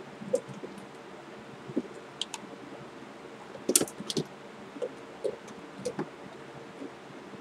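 A kitten batting at a small plastic water bottle and shoes on the floor: scattered light clicks and taps, with a quick cluster of louder taps about four seconds in.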